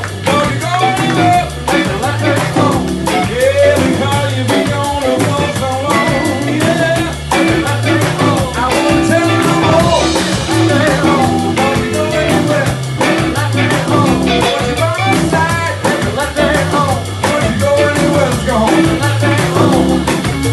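Live soul band playing: electric guitar, organ and drum kit with a steady beat, and singing over it.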